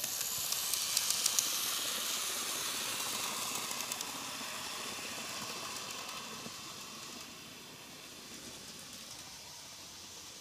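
N-gauge model steam locomotive (KATO D51) running past on its track: the small electric motor and gears whir, with a few clicks from the wheels on the rails. It is loudest as it passes close about a second in, then fades as it runs away around the curve.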